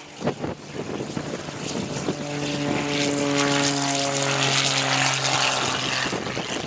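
Extra 260 aerobatic monoplane's propeller and six-cylinder Lycoming engine passing overhead. Its steady drone swells, then fades, the pitch dropping slightly as it goes by.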